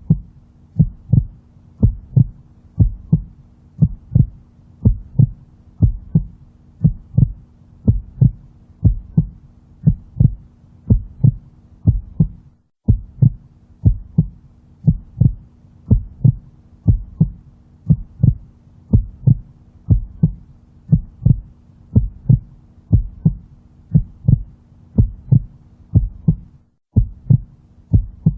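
Heartbeat sound: a steady rhythm of low, paired lub-dub thumps over a faint low hum. The hum and beats drop out briefly about 13 seconds in and again near the end.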